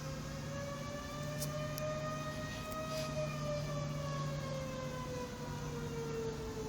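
Outdoor air raid (civil defence) warning siren wailing: one long tone that rises a little, peaks about halfway through, then falls away.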